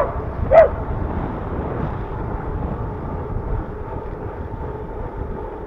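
A dog barking twice in the first second, the second bark the loudest, followed by steady low wind rush on the microphone of a bicycle-mounted action camera while riding.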